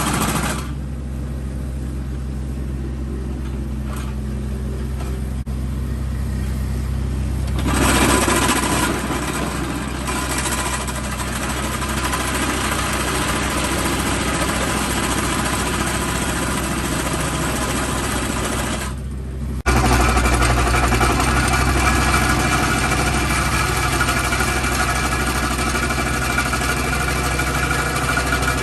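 A compact hydraulic excavator's engine running under a vibratory compaction bucket as it tamps fill. The engine hums steadily throughout while the compactor's buzzing vibration stops about half a second in. It returns at about eight seconds, cuts out briefly just before twenty seconds, and resumes louder.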